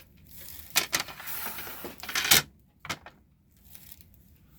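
Objects being handled and set down on a tabletop: a few sharp clicks and knocks with some rustling between them, the loudest knock about two and a half seconds in, then quieter.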